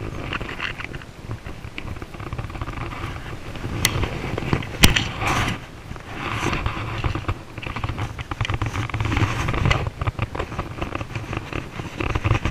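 Rustling, crackling handling noise as a fly angler casts and works the fly line with his hands and arm right by the body-mounted camera's microphone, over a low rumble. A few sharp clicks come about four and five seconds in.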